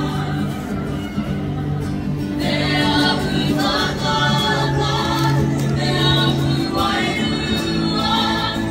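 Kapa haka group singing together as a choir. Low voices hold long notes, and from about two and a half seconds in, higher voices come in and out in phrases.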